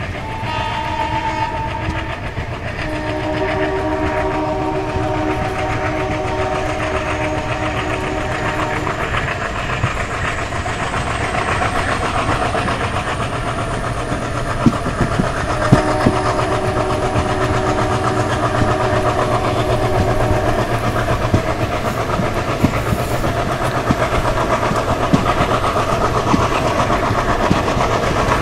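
Twin ALCO diesel locomotives hauling a passenger train: engine rumble and wheels clicking over rail joints, getting louder as the train picks up speed. The locomotive horn sounds a short blast about half a second in, then two long blasts, around 3 to 9 seconds and 16 to 21 seconds in.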